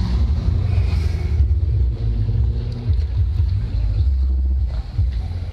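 Cars driving slowly past with their engines running, heard as a low rumble with wind buffeting the microphone.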